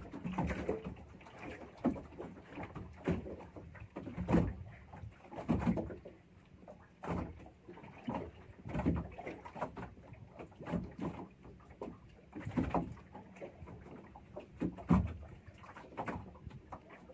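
Water slapping against the hull of a small fishing boat in irregular surges, with low knocks every second or so.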